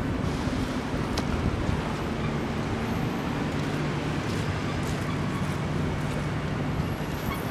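Steady rumble of road traffic, with a few faint clicks of footsteps on shingle.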